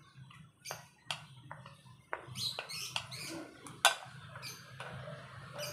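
Wooden spatula scraping and knocking against a glass bowl as noodles are pushed out into an aluminium mess tin: scattered scrapes and taps, the loudest knock about four seconds in.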